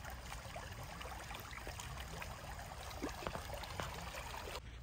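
Shallow stream running over pebbles, with small splashes of feet wading through the water, a few sharper ones late on.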